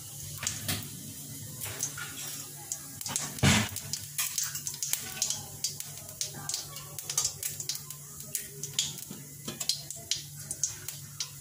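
Cumin seeds crackling in hot oil in a kadai: a scattered run of small pops over a faint sizzle, with one louder knock about three and a half seconds in. A steady low hum runs underneath.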